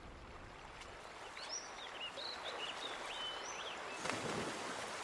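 A rocky creek flowing, a steady rush of water, with a bird chirping a quick run of short notes in the middle and a brief louder surge of water noise about four seconds in.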